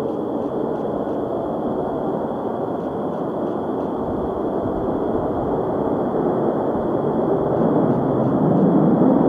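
Distant F-35B Lightning II jet on the runway, its single F135 turbofan engine making a steady rushing noise that grows louder near the end.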